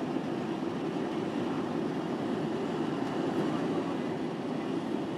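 Steady airliner cabin noise, an even low rumble with no breaks or rhythm.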